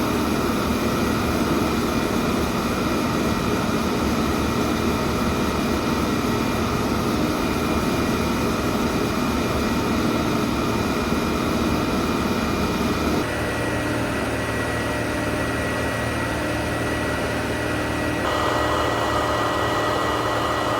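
Combine harvester running steadily while harvesting, its threshing machinery and straw walkers working, heard up close at the inspection hatch. The sound changes abruptly about 13 seconds in and again about 18 seconds in.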